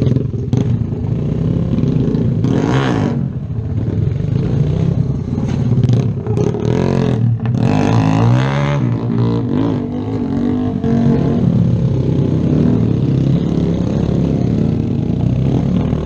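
Small single-cylinder 125cc Kawasaki Z125 motorcycle engine running and revving, its pitch rising and falling as the bike picks its way over rough, rocky dirt. Some clatter and scraping is mixed in.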